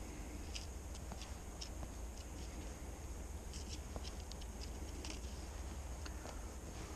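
Faint, scattered light metallic clicks and ticks from steel forceps and wire as the tag end of a wire pike trace is twisted around the trace, over a low steady rumble.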